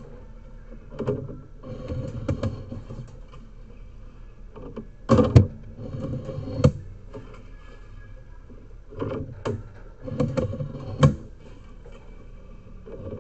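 Irregular scraping, rubbing and knocking of a sewer inspection camera's push cable being fed forward and pulled back through a drain cleanout, with sharp knocks about five, six and a half and eleven seconds in.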